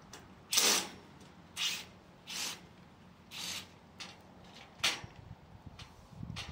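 A run of short, irregular rasping and scraping noises, about seven in all, from hand work on the steel-pipe frame of a greenhouse.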